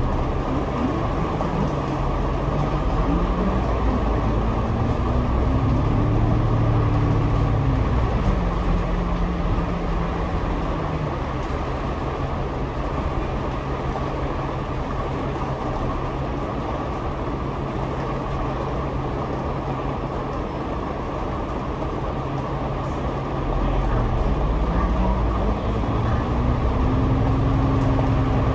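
Double-decker bus engine and drivetrain heard from the upper deck: the engine note climbs as the bus accelerates, falls back as it changes up, holds steady while cruising, then climbs again near the end, over constant road noise.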